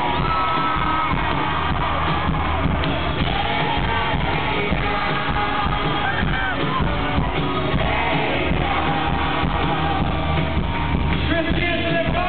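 Live band playing amplified pop-country music with vocals, heard loud from within the audience.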